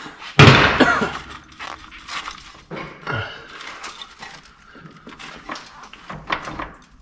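Rust-seized front brake rotor of a 2007 Honda Ridgeline being wrenched and rocked by hand on its hub, metal clanking and scraping irregularly, with a loud clank about half a second in. The rotor is rusted fast to the hub.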